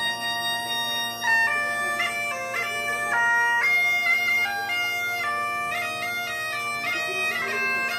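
Bagpipe playing: a steady drone throughout, with the chanter's melody coming in about a second in and moving in quick stepped notes.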